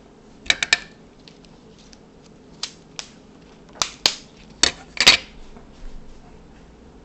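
Small hard objects handled on a homemade tap-light fan: a series of sharp clicks and taps, three quick ones about half a second in, then single ones spread over the next few seconds.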